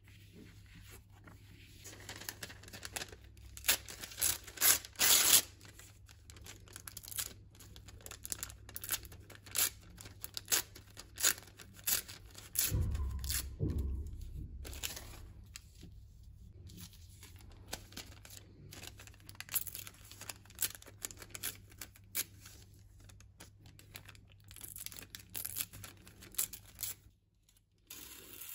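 Paper being torn and handled: printed book pages ripped into strips, with rustling and crinkling of paper in bursts. A dull thump sounds about halfway through.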